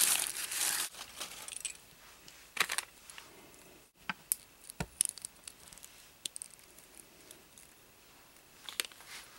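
A blind-bag wrapper crinkles for about the first second as the figure is taken out. After that come scattered small clicks of K'nex plastic pieces being handled and fitted together.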